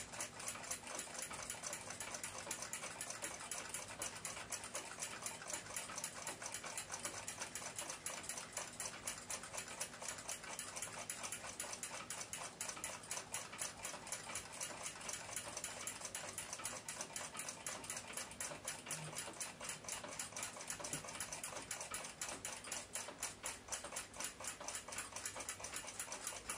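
Russian submarine clock movement ticking: its balance-wheel escapement running steadily at several ticks a second, the mainspring still wound.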